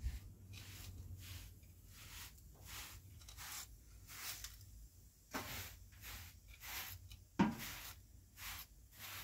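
Short straw hand broom sweeping dirt onto a metal dustpan in quick, repeated brushing strokes, with two louder knocks about five and seven seconds in.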